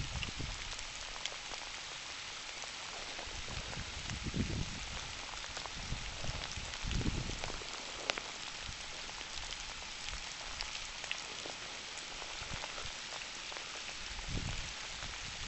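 Steady rain falling in woodland: a continuous hiss with scattered drops ticking. A few soft low thumps come and go.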